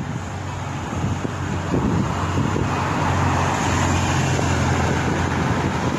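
A motor vehicle's engine and tyres going by close at hand, growing louder about two seconds in and staying loud.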